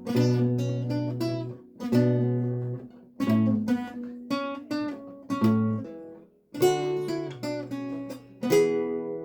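Renaissance lute being played: a phrase of plucked notes and chords, a brief pause about two-thirds of the way through, then a chord struck near the end and left to ring.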